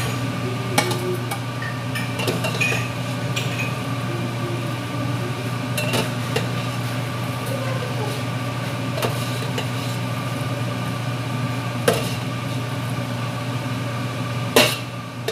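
Kitchen utensil knocks, a knife and tools against a cutting board and cookware, about five sharp knocks spread out, the loudest near the end, over a steady low hum.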